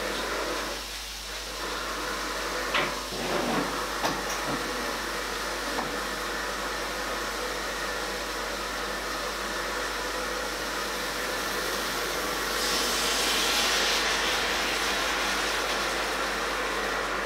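Mushrooms sizzling in a cast-iron skillet: a steady frying hiss, with a few light clicks about three to four seconds in. The sizzle grows louder and brighter for a couple of seconds about three-quarters of the way through.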